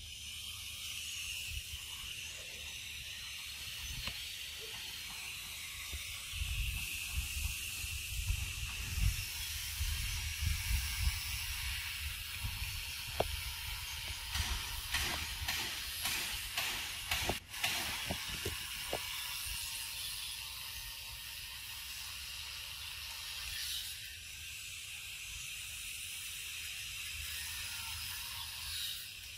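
Steady high-pitched insect chorus hissing throughout. A low rumble comes in for several seconds in the middle, and a few sharp clicks follow.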